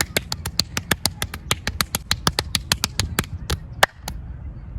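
Fast percussive massage: hands tapping and slapping on the body in a rapid, even rhythm of about six or seven sharp strikes a second, stopping about four seconds in.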